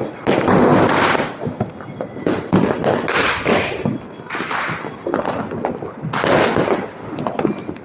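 Firecrackers and fireworks going off in rapid, overlapping succession: a dense run of bangs and crackling with no let-up.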